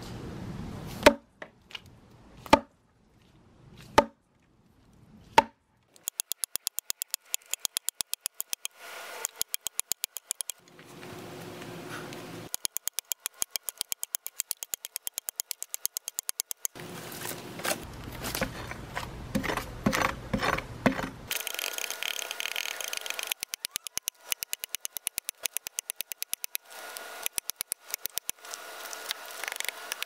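Axe chopping into a felled tree log: four single sharp blows about a second and a half apart, then long runs of rapid, evenly spaced strikes, several a second, as in sped-up chopping.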